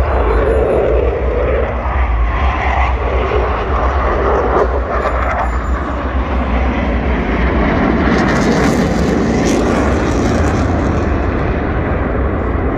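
Jet aircraft flying past in formation, a loud, steady engine rumble that grows brighter and hissier for a couple of seconds around eight seconds in.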